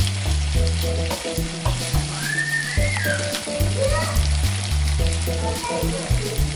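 Fish pieces and chopped onion sizzling as they fry in oil in a non-stick pan, stirred and turned with a wooden spatula that scrapes and knocks against the pan.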